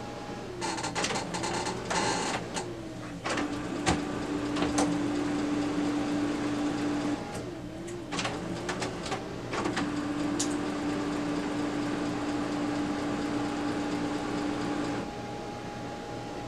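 Brother MFC-9330 colour laser printer running its start-up initialization after a new transfer belt has been fitted. First a flurry of clicks and rattles as its mechanisms engage, then its motors spin up to a steady hum. The hum drops out briefly around the middle, spins up again, and stops near the end.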